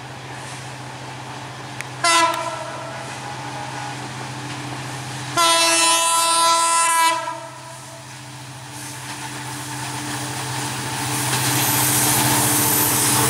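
EMD GT42ACL diesel-electric locomotive approaching with a steady engine drone. It sounds its horn twice: a short blast about two seconds in, then a louder blast lasting about a second and a half near the middle. Wheel and rail noise builds near the end as it draws close.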